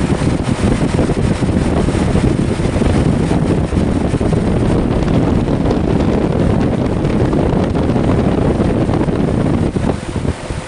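2005 Goodman GSH13 2-ton heat pump outdoor unit running, its fan and compressor giving a loud, steady rush of air noise with some buffeting on the microphone; the level dips briefly near the end.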